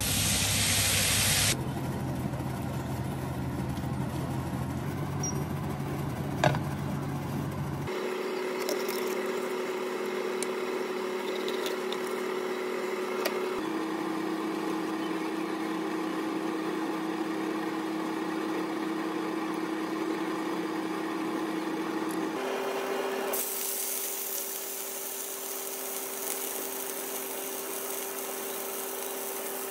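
Frying-pan sizzle, loud at the start as tomato juice is poured onto frying beets and carrots, then a steady kitchen hum under quieter noise, and from about three quarters of the way in a steady hiss of flour-dredged crucian carp frying in oil.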